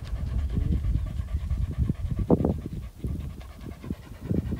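A dog panting hard in quick repeated breaths, over a steady low rumble.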